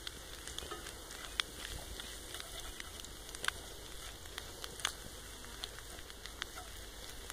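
Faint, irregular crackling pops, a few a second, from a stick fire burning in a Silverfire rocket stove under a cast iron pan.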